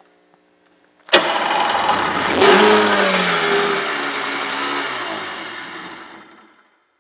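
1993 Sea-Doo GTS's Rotax 587 twin-cylinder two-stroke engine firing up suddenly about a second in on gas poured down the cylinder. It revs up briefly, then its pitch sinks and it runs down and stops after about five seconds.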